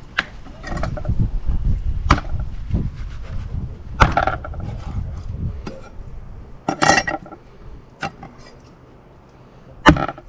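Kitchen cleaver and fillet knife knocking against a wooden cutting board while cutting fish fillets: about five sharp knocks, a couple of seconds apart.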